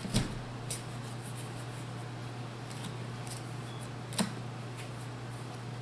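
Magic: The Gathering cards being handled and sorted by hand: a few short clicks and taps of cards against each other, the loudest just after the start and another about four seconds in, over a steady low hum.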